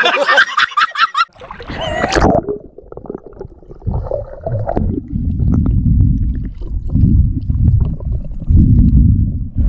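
A man laughing loudly for about two seconds. Then the low, muffled rumble of water heard underwater, in uneven surges, as a swimmer moves along the bottom.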